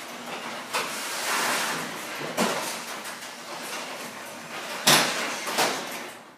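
Wayne Dalton iDrive garage door opener closing an older sectional garage door, rattling, with several sharp clunks. The loudest clunk comes about five seconds in, and then the sound runs down and stops.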